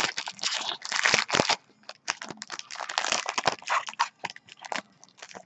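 Crinkling, crunching packaging being torn and pulled open by hand as a sealed trading-card box is unwrapped, in irregular bursts with brief pauses.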